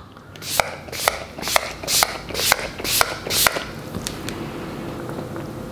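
Makeup setting spray misted from a finger-pump bottle onto the face: seven quick pumps, each a click and a short hiss, about two a second, stopping about three and a half seconds in.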